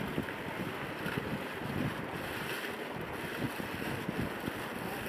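Paper pages and plastic wrapping rustling as a user manual and documents are handled, over a steady wind-like rushing on the microphone.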